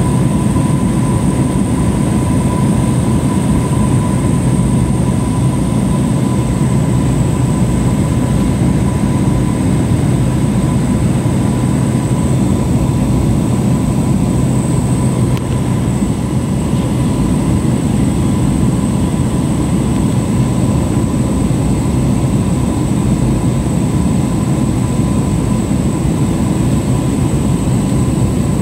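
Steady drone of a light single-engine plane's piston engine and propeller, heard from inside the cabin, with rushing air noise and a thin steady high whine above it.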